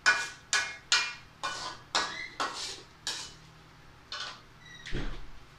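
A metal utensil knocking against metal cookware, about seven sharp ringing knocks at roughly two a second, then two softer knocks near the end.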